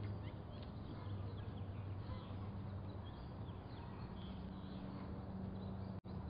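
Faint outdoor ambience: small birds chirping in short, scattered calls over a steady low hum.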